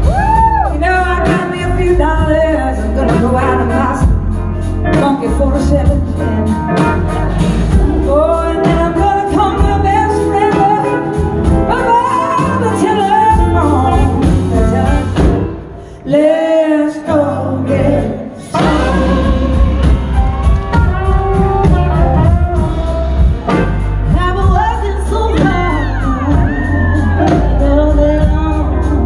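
A live blues-soul band plays with a woman singing lead over electric guitar, bass and drums, recorded from the crowd. About halfway through, the band stops for a moment, then comes back in.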